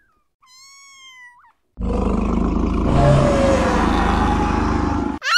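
A kitten meows twice, high and wavering. After a brief silence comes a loud tiger roar, rough and deep, lasting about three seconds and cutting off abruptly.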